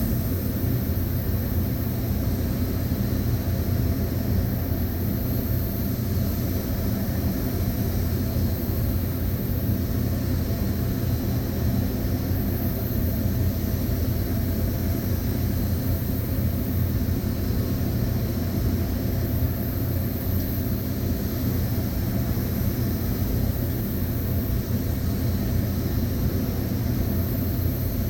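Steady mechanical drone with a low, many-pitched hum and an even high hiss that sets in right at the start and holds unchanged.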